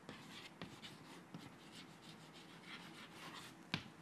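Chalk writing on a chalkboard: a series of faint scratching strokes as a word is written, with a sharp tap of the chalk near the end.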